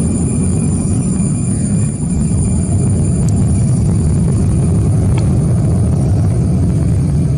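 Boeing 737 jet engines at takeoff thrust as the airliner climbs away: a loud, steady, low rumble.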